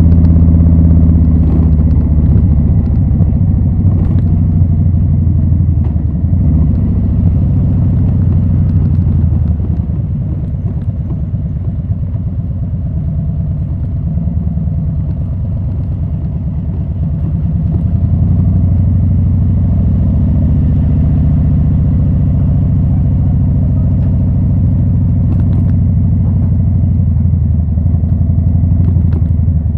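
2020 Harley-Davidson Low Rider S's Milwaukee-Eight 114 V-twin engine running loud through Rinehart slip-on exhausts. It drops back in level about ten seconds in and picks up again a little past the middle.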